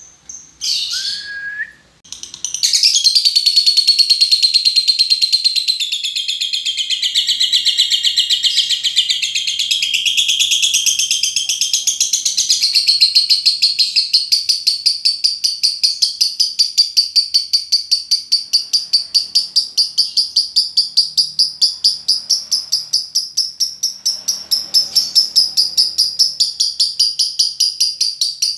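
Lovebird giving a long 'ngekek': after a couple of short high chirps, an unbroken, rapid, high chattering trill of about four notes a second that runs on for over twenty-five seconds. This is the long-duration ngekek prized in lovebird song training.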